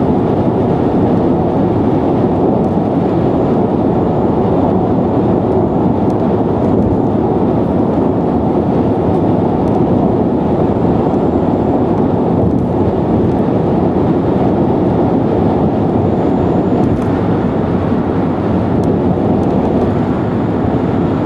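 Steady road and wind noise from a Nissan Leaf electric car cruising on an expressway: an even tyre and wind rush with no engine sound, holding level throughout.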